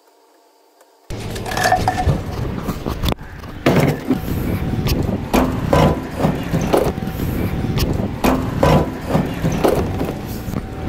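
Background music with a steady beat, starting suddenly about a second in after a brief quiet.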